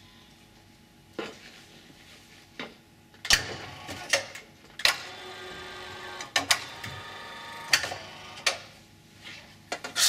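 Electric gear motors of a motorised sheet-metal folding machine run for about five seconds, starting a little past the middle of the first half, while the folding beam swings up and returns. Several sharp metallic clicks and clanks come as it starts, reverses and stops.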